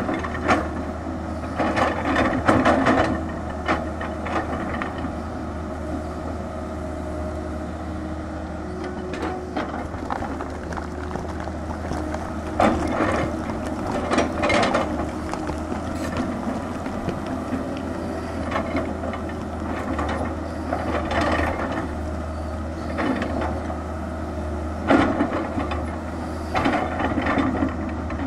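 Tata Hitachi 220 excavator's diesel engine running steadily while it digs, with repeated bursts of clattering and scraping as the bucket breaks into rocky soil and stones.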